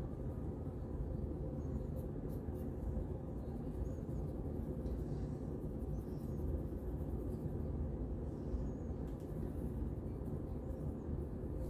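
A steady low rumble, with a few faint scratches of a plastic fine-tooth comb raking across a scalp through short, tightly curled hair.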